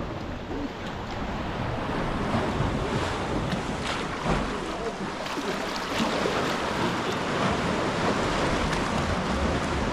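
Sea waves washing and surging against the foot of the cliffs around a sea kayak, with wind buffeting the microphone.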